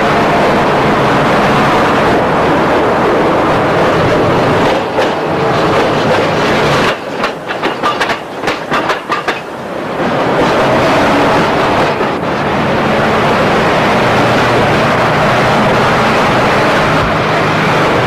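Loud, steady running noise of a moving vehicle. About seven seconds in it drops for a few seconds, with a quick run of clicks, then returns.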